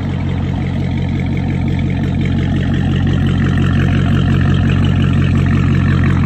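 Dodge Challenger Hellcat's supercharged 6.2-litre V8 idling steadily through a modified exhaust (mid and rear muffler delete, rear resonator delete, high-flow catalytic converters) at the quad tips, a deep, even exhaust note.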